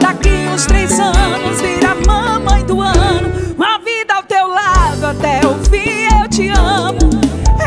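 A Portuguese-language love song playing: a sung vocal with vibrato over a steady kick-drum beat. The drums and bass drop out for about a second midway, then come back.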